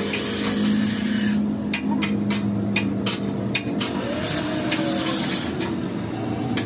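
Ratchet wrench tightening bolts on a steel tractor blade: a rasp of fast ratchet clicks, then separate clicks about three or four a second, with another rasp around two-thirds through. A low steady hum runs underneath.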